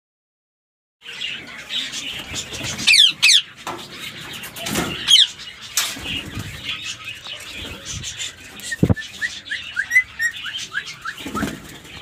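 Rose-ringed parakeets (Indian ringnecks) squawking with sharp, falling calls and short high chirps, starting about a second in. Behind the calls is a rustling, knocking handling noise.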